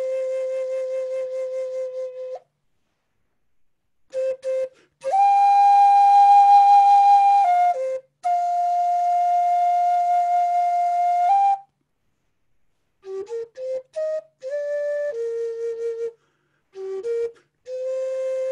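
Wooden end-blown flute played solo in a slow improvisation: long held notes, each steady in pitch, separated by pauses, then a stretch of shorter notes moving up and down in the second half before another long held note.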